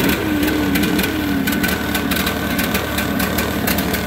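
Briggs & Stratton overhead-valve engine of a Case Ingersoll 4016 garden tractor running roughly just after starting, stumbling and uneven with irregular sharp ticks, choke off. It is the rough running of an engine whose air cleaner is soaked with oil pulled from the crankcase, typical of a bad breather or head gasket.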